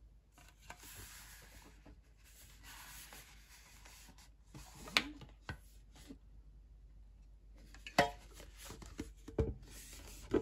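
Hands rubbing and sliding over a cylindrical whisky gift tube as it is turned, with a few sharp knocks as the tube is handled, the loudest about five and eight seconds in.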